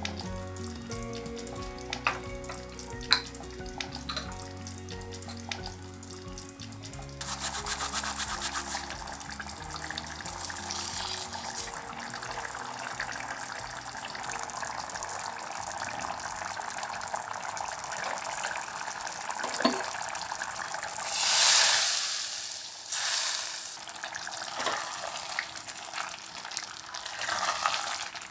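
Food frying in hot oil, with a steady sizzle and the occasional stirring sound. Soft background music plays under it during the first part, and a louder rush of sizzle comes about three-quarters of the way through.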